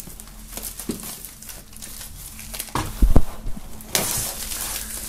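Plastic shrink-wrap film crinkling and tearing as it is peeled off a cardboard box set by hand. A couple of dull thumps come about three seconds in, then a louder stretch of rustling from about four seconds.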